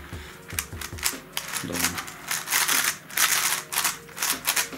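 Plastic clicking and scraping of a WitEden Mixup 4x4x4 puzzle cube's layers being turned by hand, in several quick bursts. The outer layers turn a little stiffly and catch, as on a new cube not yet broken in.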